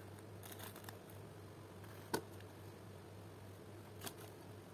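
Clear plastic wrapping being peeled off a plush doll, crinkling faintly in short spells, with one sharp click about two seconds in.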